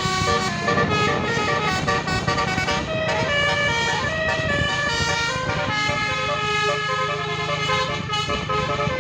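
Basuri multi-tone 'telolet' bus horn playing a tune, several notes sounding together and changing pitch in quick steps, with the bus engine running underneath.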